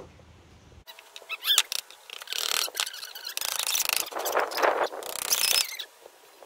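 A claw hammer tapping nails into a pine birdhouse, a few sharp knocks about a second and a half in, followed by repeated short bursts of rasping noise.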